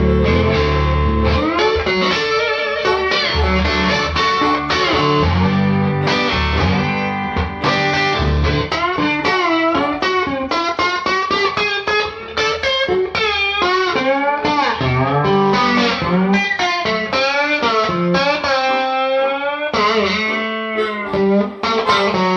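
Blues guitar solo with notes bent and wavering up and down, over a low bass line that drops out in the middle and returns near the end.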